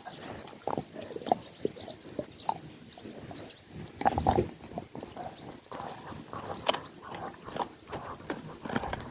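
A dog chewing and gnawing on something held between its paws, making irregular crunches and clicks of its teeth. A louder bout of crunching comes about four seconds in.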